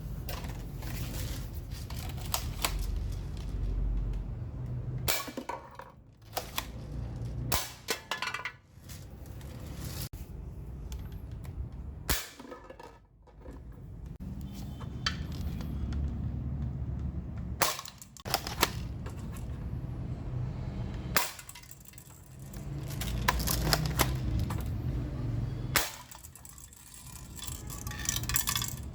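D-Cobra M96 spring airsoft gun firing at a can: about seven sharp cracks spaced a few seconds apart, over a low rumble.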